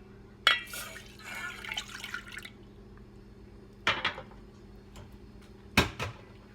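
A glass of milk being poured into a cooking pot: a splashing pour lasting about two seconds, then two sharp clinks of kitchenware, the second louder, near the end.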